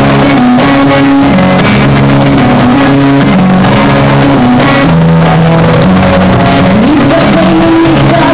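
Loud, continuous music: an instrumental melody of held notes that step from pitch to pitch, with a sliding note near the end.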